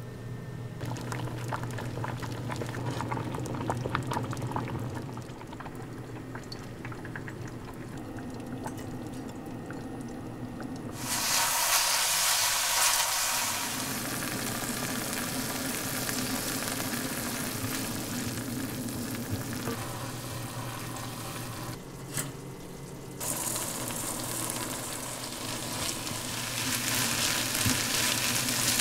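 Hot enamelled cast-iron pan sizzling: a sudden loud hiss about ten seconds in as seasoned soy sauce and mirin hit it to cook off the alcohol, carrying on as soaked rice is stir-fried with a wooden spatula. Before that, only soft scattered ticks from the stovetop.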